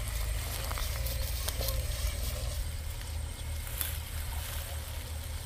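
Wind rumbling on the microphone, with a few faint rustles and steps of someone walking through tall grass.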